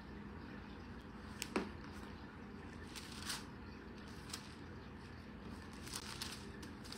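Thin Bible pages being turned by hand: faint, scattered paper rustles and flicks over steady low room noise.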